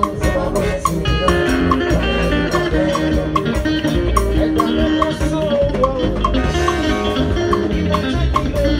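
Live band playing upbeat gospel music, with held chords over a dense low end and a steady, bright percussion tick a little over twice a second.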